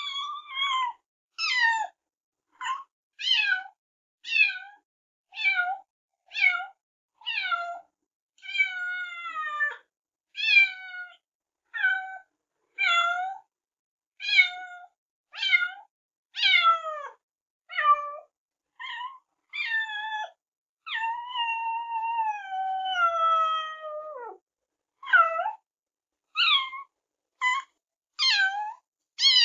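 A cat meowing over and over, about one short meow a second, most of them falling in pitch. Two longer drawn-out meows come in, one about nine seconds in and one about three-quarters of the way through that slides slowly down in pitch.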